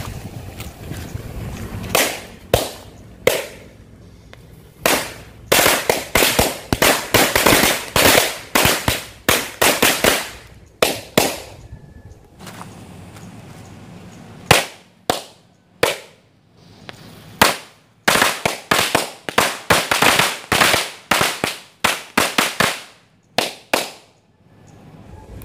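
Match-head firecrackers (mercon korek) going off, one of them under a coconut-shell half: dozens of sharp bangs in fast, irregular runs, with a short lull about halfway through.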